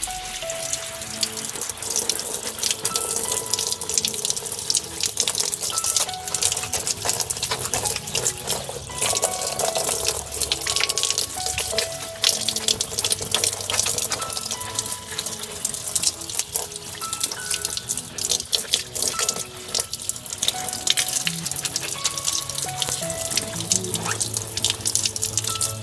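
Running water splashing steadily, over background music.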